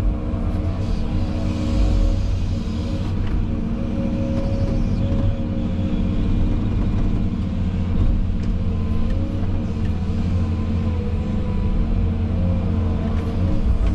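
Diesel engine of an earthmoving machine running steadily under work, with a fainter whine above it that wavers in pitch.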